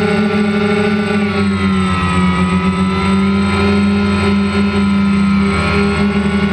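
DJI Phantom quadcopter's motors and propellers buzzing steadily, heard close up from the camera mounted on the airframe. Its several tones shift in pitch a second or two in.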